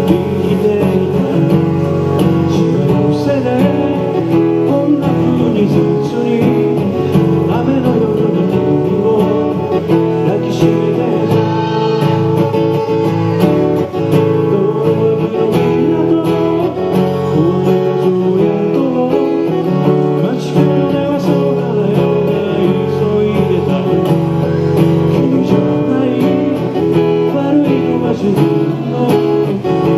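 An acoustic guitar played continuously as accompaniment to a voice singing a pop song.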